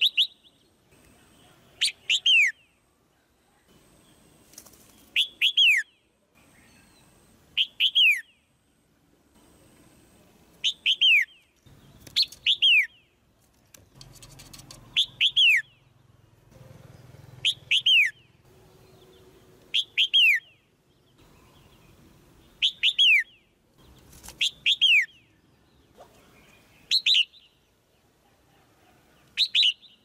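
Female red-whiskered bulbul giving short chirping calls, about a dozen of them, each a quick two-note downward slur repeated every two to three seconds. These calls are used to stir a male into singing harder.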